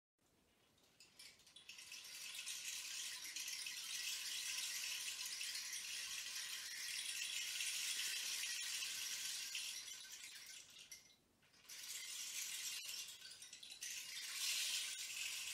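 A continuous soft rattling hiss, all in the high range, that fades in over the first two seconds and drops away briefly about eleven seconds in before returning.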